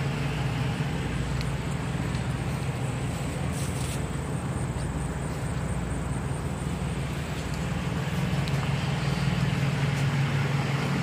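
Steady low drone of idling diesel truck engines mixed with the constant noise of highway traffic.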